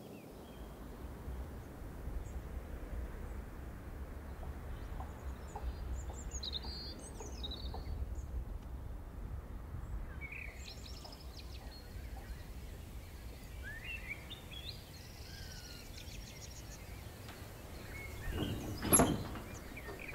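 Quiet outdoor ambience: a steady low rumble with songbirds chirping now and then. Near the end, a loud knock as a wooden window shutter is pushed open.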